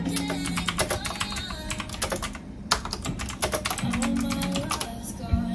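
Quick typing on a backlit mechanical keyboard, keystrokes clicking in fast runs with a brief pause about two and a half seconds in and thinning out near the end, over soft background music.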